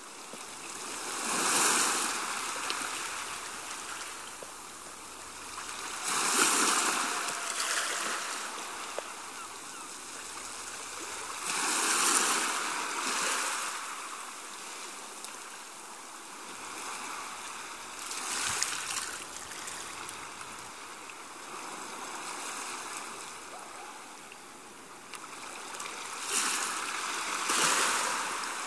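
Rushing, water-like noise that swells up and dies back about every five or six seconds, with two swells close together near the end.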